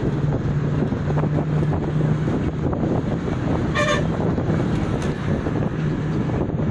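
Steady engine and road noise of a moving vehicle on a hill road, with a low, even hum. Just under four seconds in, a vehicle horn gives one short toot.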